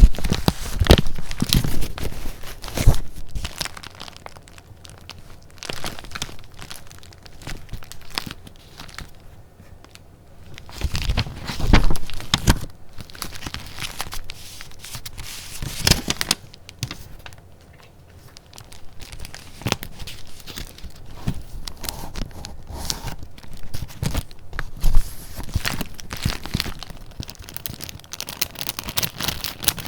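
Paper goods being handled close up, with irregular bursts of paper noise and quieter stretches between.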